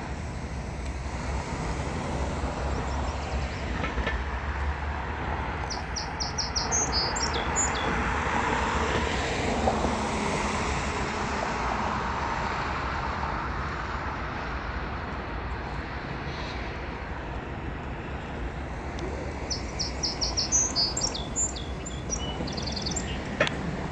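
Canadian Pacific diesel locomotives rolling slowly past, their engines giving a steady low rumble. Two bursts of rapid clicking come through, about six seconds in and again about twenty seconds in.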